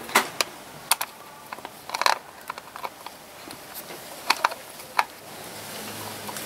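Hands fitting the front sprocket cover onto a Yamaha XT660R engine: a string of sharp clicks and knocks as the cover and its parts tap together, some in quick pairs and clusters.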